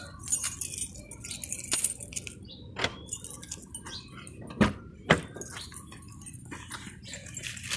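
Keys jangling with scattered light clicks, then two sharp knocks about half a second apart, a little past the middle, as a car's driver door is unlatched and swung open.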